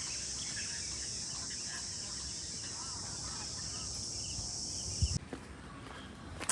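A steady, high-pitched chorus of insects with faint, scattered bird chirps. About five seconds in there is a low thump, and the insect chorus cuts off suddenly.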